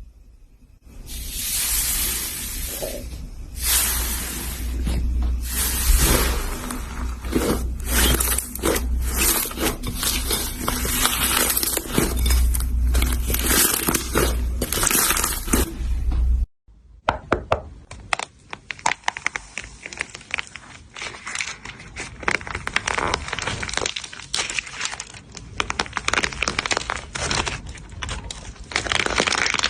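Slime being squeezed and pressed by hand: dense crackling, clicking and popping. It breaks off abruptly a little past halfway and resumes as a finer, denser crackle.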